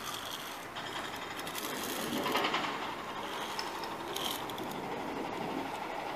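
Zip-line pulley trolley running along a steel cable, a continuous mechanical rattle.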